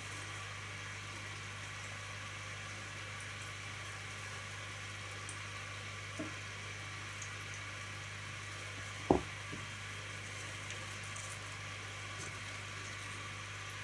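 Steady hiss with a low hum, broken by a faint tap about six seconds in and one sharp knock about nine seconds in as a cork bark hide is lifted off the gravel in a plastic enclosure.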